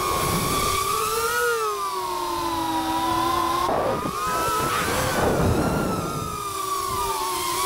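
FPV racing drone's brushless motors and propellers whining, heard from the camera on the drone itself. The pitch rises and falls with the throttle, and around the middle a burst of throttle brings a rush of propeller wash and quick jumps in pitch.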